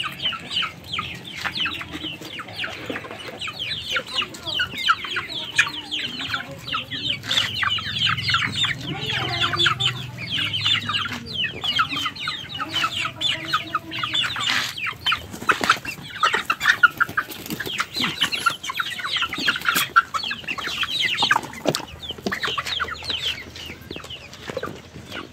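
A flock of young Black Australorp chickens, with a few Rhode Island Reds, cheeping and clucking as they feed. Many short high-pitched calls overlap without a break, and a few sharp knocks are heard.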